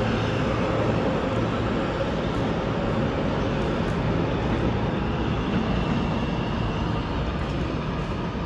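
New York City subway train running through the station: a steady rail rumble with faint steady tones above it, easing slightly near the end.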